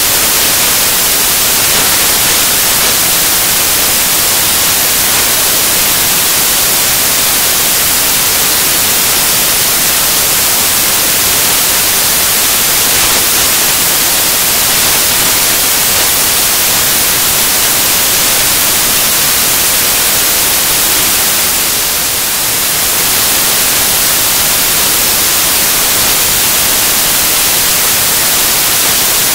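Loud, steady hiss of static, like white noise, covering the whole sound track with nothing else heard above it; it dips slightly about three-quarters of the way through.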